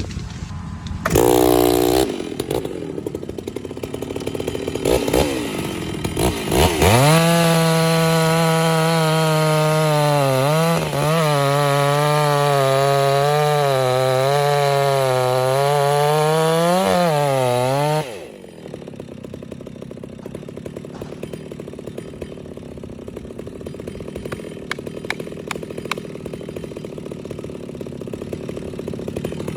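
Chainsaw cutting through a maple log. It blips briefly about a second in, then runs at full throttle from about seven seconds, its pitch wavering under load as it cuts. About eighteen seconds in it drops back to a much quieter idle.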